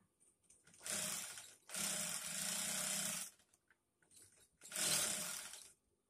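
Industrial sewing machine, driven by its under-table clutch motor, running in three short runs of stitching as the foot pedal is pressed and let go, the middle run the longest.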